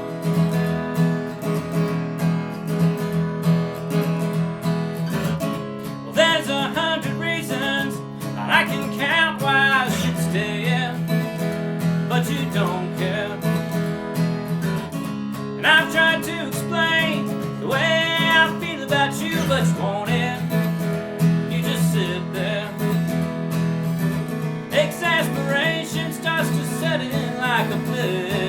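Acoustic guitar playing the instrumental intro of a country tune: steady strummed chords, with a higher melody line coming in three times.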